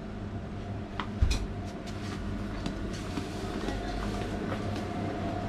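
Street and shop ambience: a steady low mechanical hum, with background voices and a few short clicks and knocks, the loudest about a second in.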